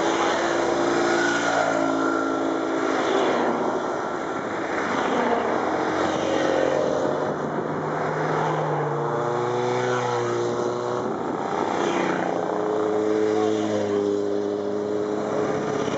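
A stream of motorcycles riding past one after another, several engines overlapping, their notes shifting and falling in pitch as each goes by.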